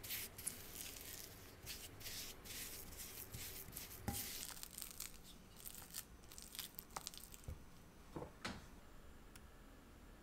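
Silicone spatula scraping and mashing mascarpone cheese and sugar against a glass mixing bowl, in quick, irregular strokes with an occasional light knock.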